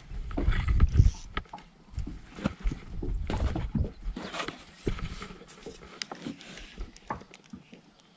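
Irregular knocks, clicks and low thumps of gear being handled on a small fishing boat; the loudest thump comes about a second in.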